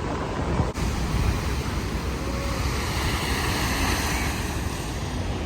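Heavy storm surf pounding a rocky shore: a steady rushing roar with a deep low rumble, with wind on the microphone.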